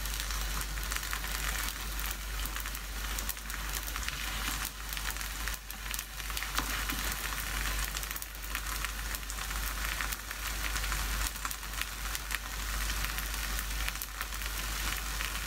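Oil sizzling steadily with many small crackles under a paratha frying in a non-stick pan over medium-low heat.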